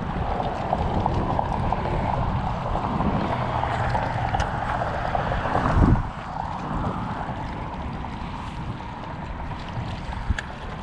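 Wind buffeting the microphone, with water lapping against the rocks of the shoreline; the wind eases about six seconds in.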